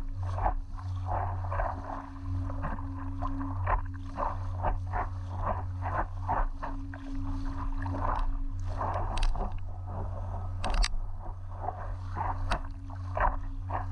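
Water splashing and lapping against an inflatable stand-up paddleboard on the move: quick, irregular slaps several times a second over a steady low rumble.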